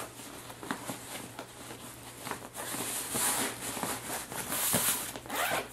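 Soft fabric rustling and handling noises as a muslin blanket is tucked into a cloth diaper bag's pocket and the bag is handled, louder about three seconds in and again near five seconds.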